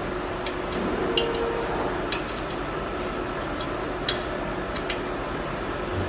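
GP-630 slab-processing sawing machine running with a steady hum and faint whine, broken by several scattered sharp clicks.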